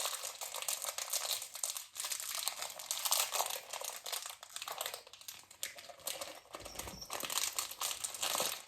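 Paper packaging of a Disney Doorables figure crinkling and tearing as it is ripped open and handled, a continuous run of fine crackles.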